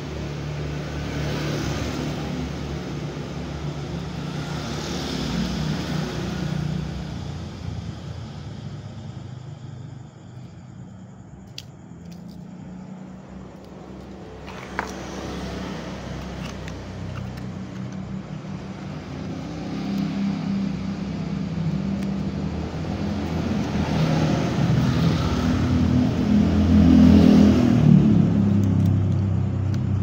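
A motor vehicle engine running, its pitch wavering, growing louder over the last ten seconds, with a single small click about halfway through.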